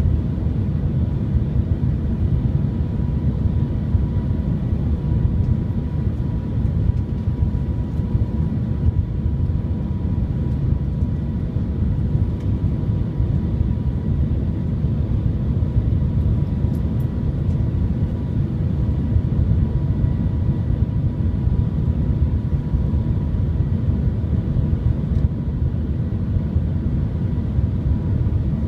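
Steady cabin noise inside the Shanghai Transrapid maglev train travelling at speed: a deep, even rush and rumble with a faint steady whine over it.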